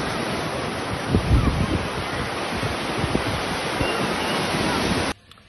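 Ocean surf breaking and washing in the shallows, with wind buffeting the phone's microphone in irregular low thumps. It cuts off suddenly near the end.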